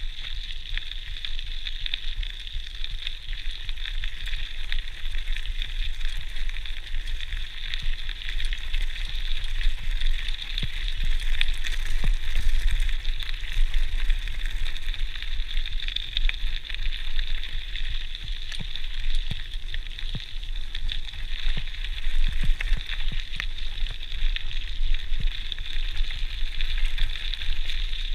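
GT Outpost Trail mountain bike's tyres rolling fast over a gravel forest track, a steady crackling crunch over a low rumble, picked up by a chest-mounted GoPro.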